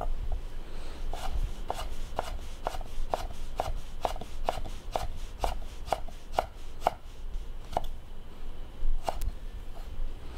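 Chef's knife dicing strips of raw horseradish root on a wooden cutting board: steady knife strokes against the board, about two a second, thinning to a couple of spaced strokes near the end.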